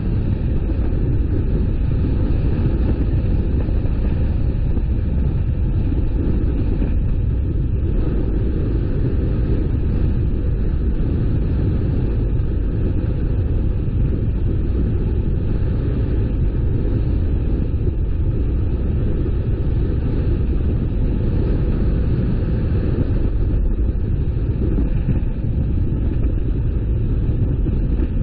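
A car driving along a road: a steady, unbroken low rumble of road and engine noise.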